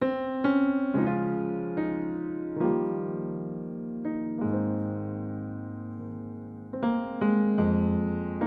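Background music: gentle piano playing a slow sequence of chords.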